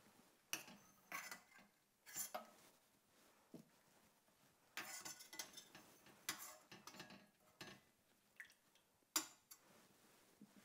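Metal slotted spoon clinking against a stainless steel pot in scattered light taps as boiled artichokes are scooped out of the pot. There is a cluster of taps about five seconds in and the sharpest clink about nine seconds in.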